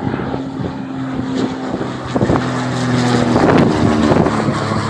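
An engine running with a steady low hum that shifts slightly in pitch a couple of times.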